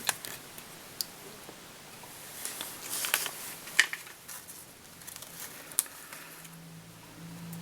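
Small-scale fly-tying handling at the vise: scattered sharp clicks and light rustles of thread and materials as jungle cock eyes are tied onto the sides of a tube fly.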